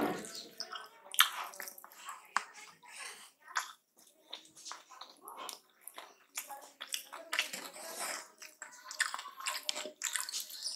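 Wet eating sounds: fingers squishing and mixing rice with potato-mince curry on a plate, and chewing of mouthfuls, in irregular short bursts and clicks.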